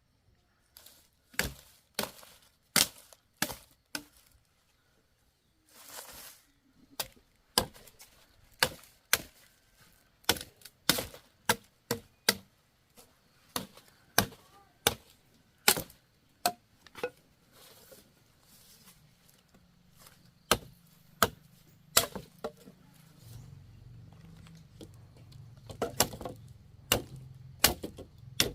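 Repeated chopping strikes with a blade, sharp knocks at uneven spacing of about one to two a second, with a short break a few seconds in. A low steady hum comes in during the second half.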